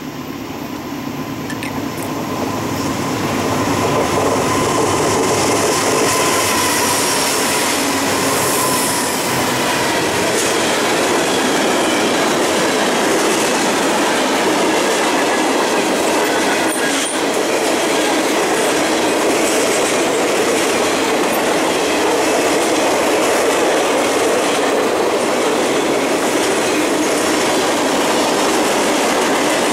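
Freight train passing at speed: the noise grows louder over the first four seconds as it approaches, then holds steady as a string of covered hopper cars rolls by with a constant wheel-on-rail rumble.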